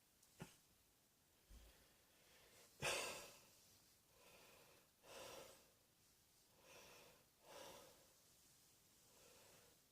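A person's faint breathing: one louder, sharp breathy burst about three seconds in, then a run of soft breaths about a second apart.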